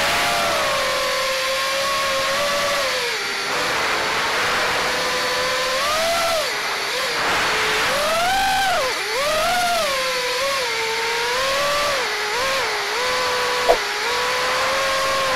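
FPV freestyle quadcopter's brushless motors and propellers whining, the pitch sweeping up and down with the throttle as it flies. A single sharp click near the end.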